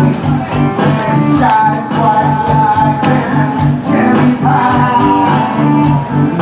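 Pop song with a singer's held notes over strummed guitar and a steady, pulsing bass beat.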